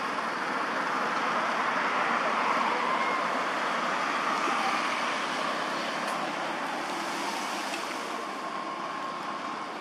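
Steady rushing background noise, like distant traffic, that swells a little a few seconds in and slowly fades.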